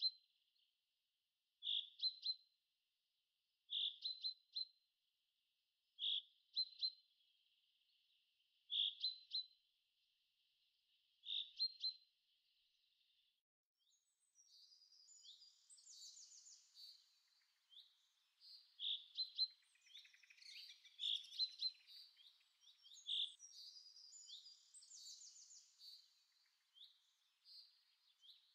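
Birdsong: a single bird repeats a short chirping call about every two to three seconds, six times, then from about halfway several birds chirp and trill together in a denser chorus.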